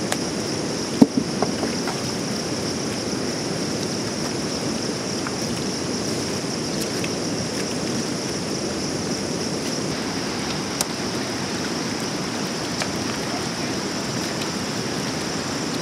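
Shallow, muddy flood water rushing steadily over and between river stones, with a thin, steady high-pitched whine above it. A single sharp knock about a second in, with a few fainter clicks later.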